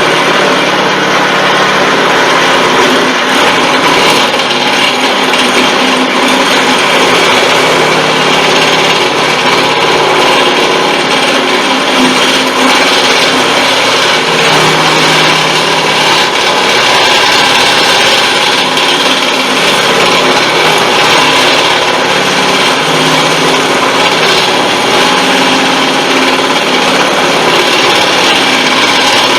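Vevor 1440 wood lathe running on its slowest speed while a 5/8-inch twist drill in the tailstock bores into spinning construction fir. The motor's steady hum sits under a continuous scraping, cutting noise from the bit in the wood.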